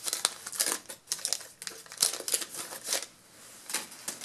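Quick paper-and-card crinkling and rustling as 1988 Topps football trading cards and their wax-paper pack wrappers are handled and sorted onto stacks. The rustles come thick and fast for about three seconds, then thin out to a few.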